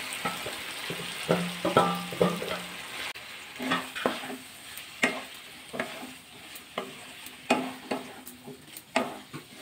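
A spatula stirring raw jackfruit and potato pieces in a pot of hot spiced oil, scraping and knocking against the pot about once or twice a second over a light sizzle.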